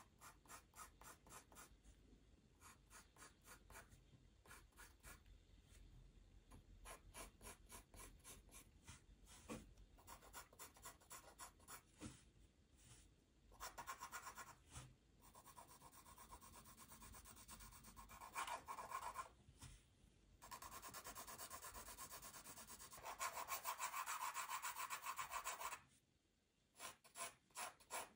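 Pencil on paper: quick, repeated short scratching strokes, several a second. About halfway through they give way to longer, louder stretches of continuous rubbing, broken by a brief pause near the end.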